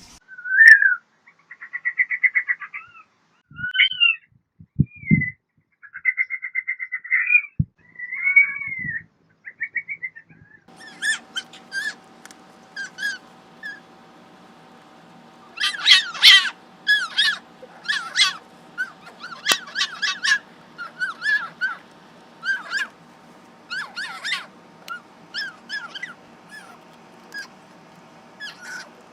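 Fennec fox calling in high-pitched chirps and rapid trilling, chattering calls, with a few soft thumps. About ten seconds in, the calls turn to quick, sharp repeated chirps and yips over a steady hum.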